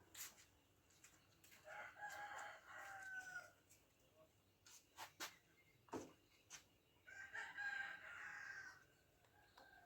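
Faint rooster crowing twice, each crow lasting just under two seconds. A few short, sharp clicks come between the crows.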